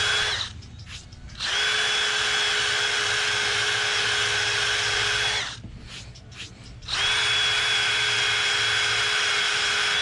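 Cordless drill spinning a wire wheel brush against fresh concrete to scrub out initials pressed into the surface: a steady motor whine over a scraping rasp. It stops briefly about half a second in, picks up again, then pauses from about five and a half to seven seconds before running on.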